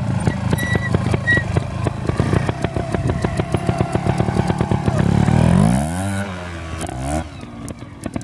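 Trials motorcycle engine running at low revs with rapid, even firing pulses, then revved hard about five seconds in for the climb, eased off, and blipped again near seven seconds before fading as the bike pulls away up the slope.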